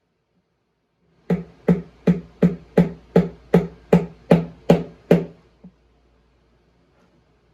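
A run of about eleven evenly spaced sharp strikes, roughly two and a half a second, each with a short ring, then one faint strike just after.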